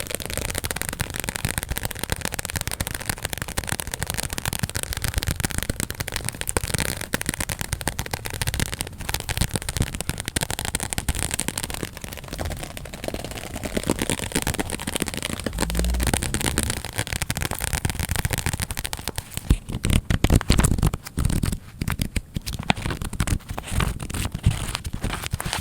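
Sped-up ASMR tapping: a dense, fast stream of taps and clicks with no pauses, turning heavier and louder about twenty seconds in.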